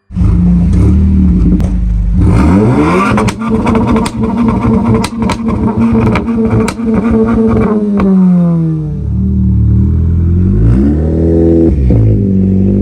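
Stage 2-tuned Volkswagen Golf GTI Mk7.5's turbocharged 2.0-litre four-cylinder revved through a custom-built stainless-steel exhaust system. It idles, rises about two seconds in and is held high for several seconds with a string of sharp cracks, falls back, then is blipped once more near the end.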